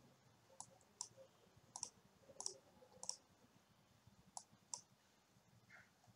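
Faint clicks of a computer mouse, about seven short clicks at uneven intervals, some in quick pairs, over near silence.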